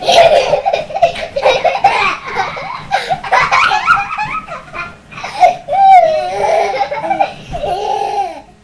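Loud, continuous laughter in rapid wavering bursts, with a brief lull about five seconds in before it picks up again.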